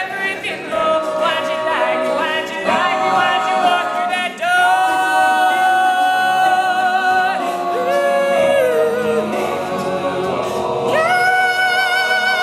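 Male a cappella group singing close-harmony chords at the end of a song. The notes lengthen into long held chords, and a final chord swells in about 11 seconds in and is sustained.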